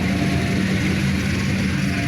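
Passenger train running past, a loud steady rumble with a low hum from the locomotive engine.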